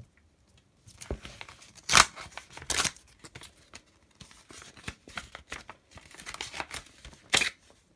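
Paper envelope being torn open by hand: rustling and crinkling with a few sharp rips, the loudest about two seconds in and others near three and seven and a half seconds.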